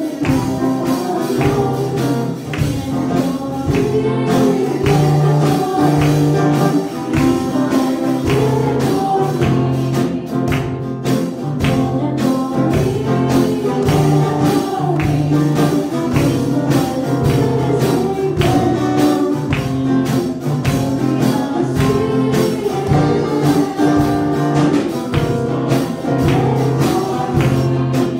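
A girl singing a Spanish Christian worship song into a microphone over instrumental accompaniment with a steady beat.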